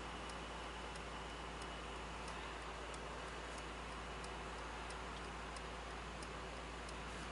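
Car's indicator (turn-signal/hazard) ticking evenly, about one and a half ticks a second, faint over a low steady hum in the cabin of a Mercedes-AMG SL 63.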